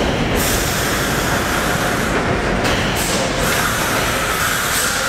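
Vintage 1930s R1–R9 subway cars running through an underground station: a loud, steady rumble of wheels on rail with high hiss, and a thin steady squeal entering about three and a half seconds in.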